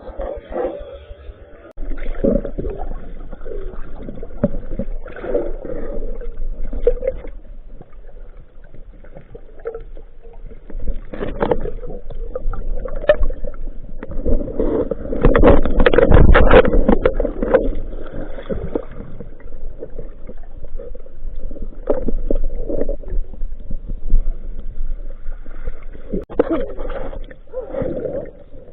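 Muffled water sloshing and gurgling, with scattered knocks and a louder swell about halfway through.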